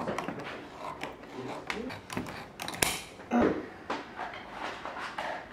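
Light clicks and knocks of hand tools being handled at a shoemaking workbench, with one sharp knock nearly three seconds in.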